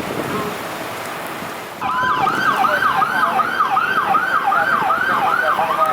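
Emergency vehicle siren starting about two seconds in, sweeping rapidly up and down about twice a second, then switching near the end to a long, slowly rising tone. Steady background noise before it starts.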